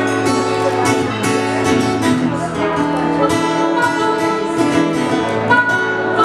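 Live acoustic band instrumental: an acoustic guitar and an upright bass, with a harmonica played into a hand-held microphone joining partway through.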